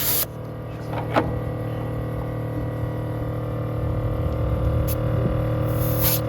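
Air compressor running steadily with a hum while inflating a plugged RV trailer tire. A hiss of air cuts off just after the start, and another short hiss comes near the end as the air chuck is worked on the valve stem.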